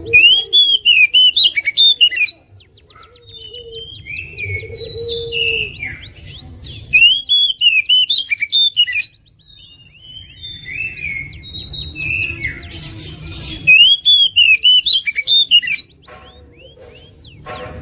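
Oriental magpie-robin (kacer) singing: three loud bursts of fast, repeated arched notes, at the start, about seven seconds in and about twelve seconds in. Softer whistled phrases and downward-sliding notes fall between the bursts.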